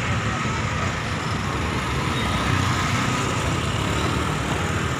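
Road traffic: a car's engine running as it drives slowly past close by, over a steady low rumble of vehicles.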